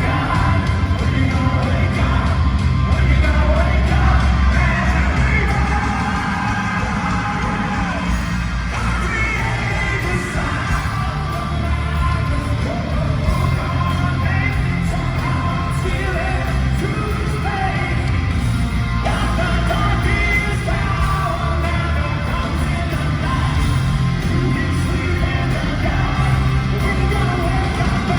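Hard rock band playing live at full volume, with heavy bass and drums, a lead vocal, and yells in the mix.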